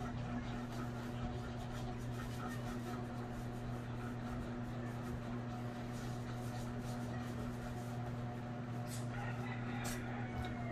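A low, steady hum with faint rustling and handling of a snake-print fabric garment, and a few brighter clicks near the end.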